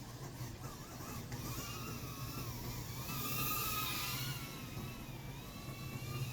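Drone's electric motors whining, the pitch wavering up and down as the throttle changes, swelling louder around the middle.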